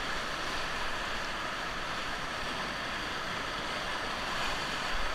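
Steady wash of moving river water around a whitewater raft, an even rushing noise with no break.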